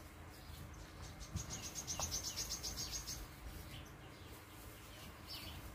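Quiet outdoor wildlife sounds: a high, rapid chirping trill lasting about two seconds, starting a little over a second in, with a few faint short bird chirps.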